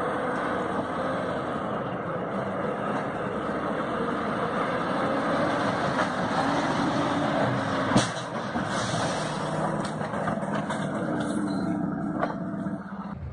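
Heavy truck engine running under a steady rushing noise, with one sharp crack about eight seconds in.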